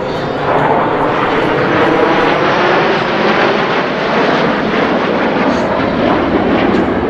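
Jet noise from a formation of USAF Thunderbirds F-16 Fighting Falcons flying by: a loud, steady roar that swells about half a second in and then holds.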